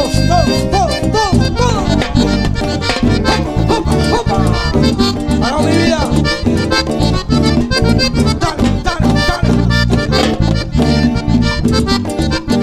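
Live band playing an instrumental passage of Latin dance music, with an accordion-like lead melody over bass and a steady drum beat.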